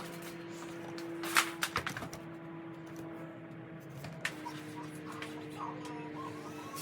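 Soft background music with held notes that change pitch partway through. A short run of sharp clicks and knocks comes about a second and a half in.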